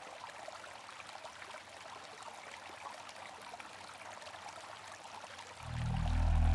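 Faint, even trickle of river water flowing at a bank, with small crackling ticks. About five and a half seconds in, a low drone swells in and grows louder.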